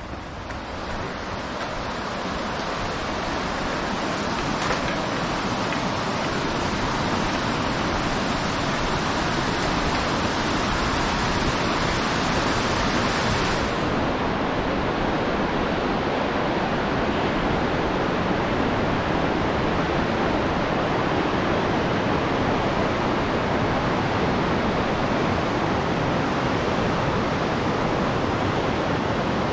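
Glacial meltwater river rushing over rocks beneath a footbridge: a loud, steady roar of white water that swells over the first few seconds and then holds. Its highest hiss thins out about halfway through.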